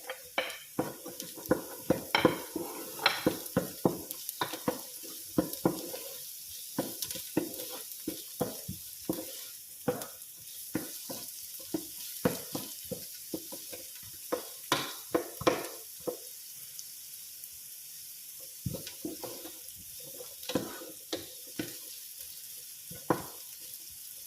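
Carrots and other vegetables sizzling in a frying pan while a utensil stirs them, with frequent sharp clanks and scrapes against the pan over a steady frying hiss. The stirring thins out for a couple of seconds past the middle, then picks up again.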